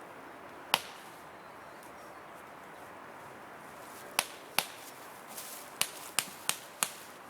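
Airsoft pistol shots, sharp short cracks: one single shot, then after a pause a quick string of six more fired a few tenths of a second apart.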